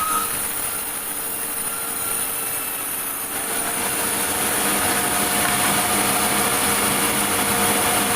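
Sawmill machinery running steadily with a steady hum, growing a little louder from about three seconds in.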